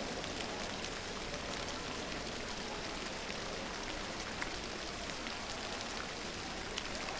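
Steady rain-like hiss of a diving pool's surface sprinkler spraying the water, with the arena otherwise hushed.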